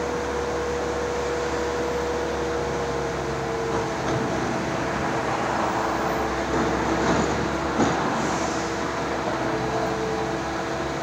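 Steady mechanical drone with a few held tones over a noisy hum, like an engine or machinery running, with a few brief louder bumps about seven to eight seconds in.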